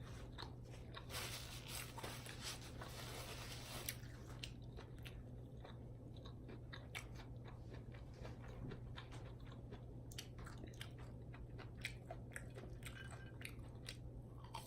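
A person chewing food close to the microphone, with many small wet mouth clicks. The chewing is denser and crunchier for a few seconds about a second in.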